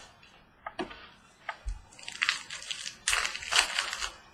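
Trading card pack wrapper crinkling and tearing open, in two stretches of rustling, the second and louder one about three seconds in, after a few light clicks of handling.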